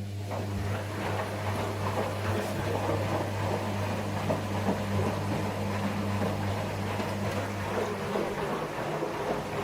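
New washing machine running on a test, a steady electric motor hum with a rushing noise over it, switching on abruptly at the start.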